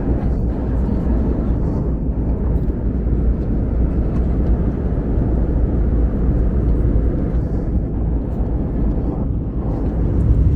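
Steady cabin noise of an Airbus A321LR Neo airliner in flight: a low, even rumble of engines and airflow, heard from inside the cabin.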